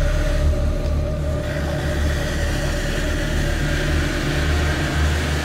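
Off-road vehicle's engine running under load with a steady, low pulsing drone as it is driven through mud. A broad hiss rises in about a second and a half in.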